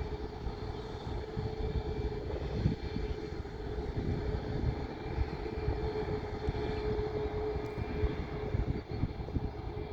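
Boeing 737 MAX 8-200 jet engines (CFM LEAP-1B turbofans) running steadily: a continuous hum with a held mid-pitched tone over a low rumble.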